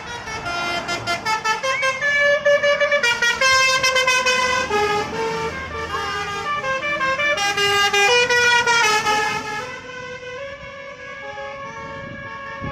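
Telolet musical bus horn, a multi-trumpet electric air horn, playing a tune in quick stepped notes, often several notes at once. It is loudest in the middle and plays on more quietly for the last few seconds.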